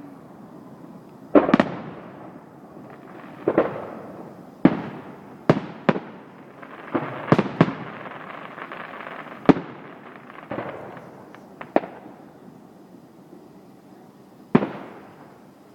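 Fireworks bursting: about a dozen sharp bangs at irregular intervals, each trailing off in an echo, and bunched closest together in the middle.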